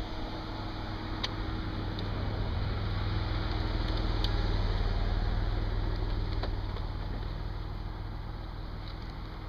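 Low rumble of a vehicle engine that swells toward the middle and then fades, with a few faint clicks.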